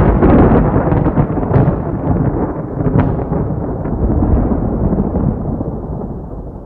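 A loud, deep explosion rumble with scattered crackling pops, loudest at the start and slowly dying away.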